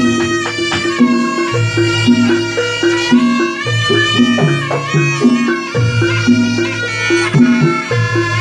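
Live jaranan music: a reedy wind instrument plays a sustained melody over a repeating pattern of low drum and bass notes.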